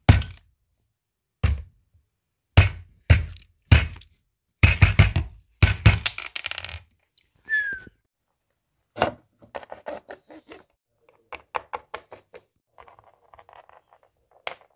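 A plastic water bottle banged down again and again on a wooden tabletop: a string of hard thunks over roughly the first six seconds, then lighter knocks and taps.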